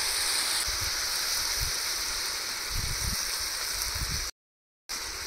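Curry sizzling in a pan: a steady frying hiss with a few soft low knocks. The sound cuts out abruptly about four seconds in and comes back briefly near the end.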